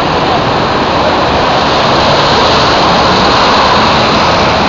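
Busy city street traffic: city buses and a car passing close by, a loud, steady rush of engine and tyre noise.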